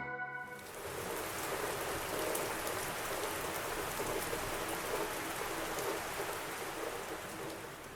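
Steady rain falling, an even hiss with faint ticks of single drops.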